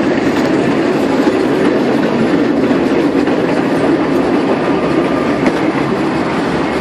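Vintage electric tram running along its track, heard from aboard its open wooden car: a steady noise of the wheels on the rails and the rattling carriage.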